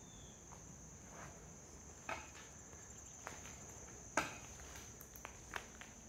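Steady high-pitched chorus of insects, with the occasional crunch and knock of footsteps on a rubble-strewn floor, the sharpest about four seconds in.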